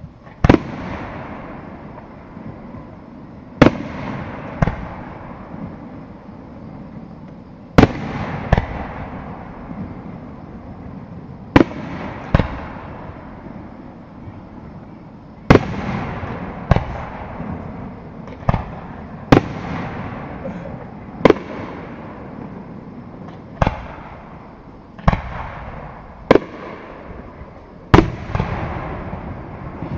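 Aerial firework shells bursting in a fireworks display: sharp bangs every one to four seconds, about seventeen in all, each followed by a long fading echo.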